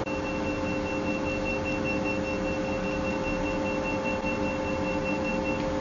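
Diode laser hair-removal handpiece firing in its fast 10 Hz FHR mode: a rapid, evenly repeating high beep marks the laser pulses and stops shortly before the end. A steady hum from the machine runs underneath.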